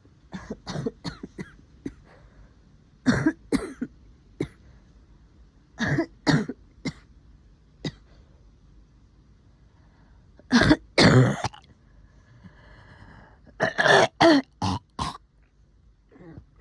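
A woman's wet, phlegmy cough from COVID-19: short fits of two to six coughs and throat clearing, again and again, the loudest and longest fit about ten seconds in. The phlegm is heavy in her chest and throat.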